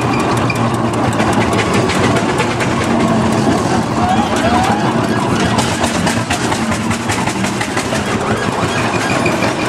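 Steam traction engine running along a town road: a steady, busy mechanical noise with many small clanks and knocks from its moving parts and wheels.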